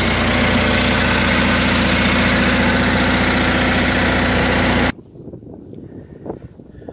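Garden tractor engine running steadily at a constant speed, cutting off suddenly about five seconds in, leaving only faint low sounds.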